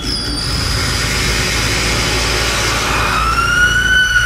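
Harsh noise music from live electronics (effects pedals and patch-cabled modules): a dense hissing wash over a steady low rumble, with thin high whistling tones. About three seconds in, a squealing tone slides upward and then holds.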